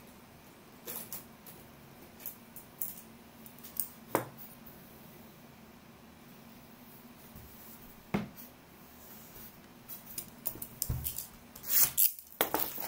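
A few scattered sharp clicks and taps over quiet room tone, then a cluster of taps and handling noise as a shrink-wrapped cardboard trading-card hobby box is picked up and turned over by hand near the end.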